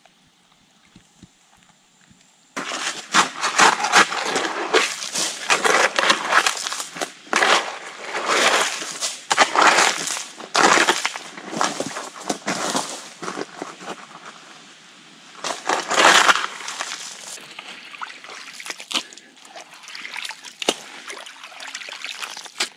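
A shovel digging into wet, stony mud, starting suddenly about two and a half seconds in: repeated irregular scraping and chopping strokes with muddy water splashing. Near the end the strokes give way to quieter sloshing of hands working in the muddy water.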